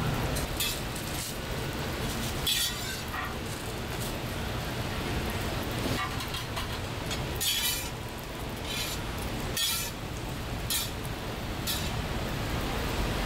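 Metal cooking utensils clinking and scraping at a food stall, in short irregular strikes roughly once a second, over a steady background hiss.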